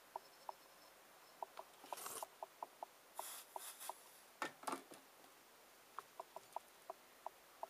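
Faint handling sounds at a soldering bench: a scatter of short, light clicks, brief soft hissing about two and three seconds in, and a louder rustle near the middle as the soldering iron is taken away from the joint and the helping-hands clips are handled.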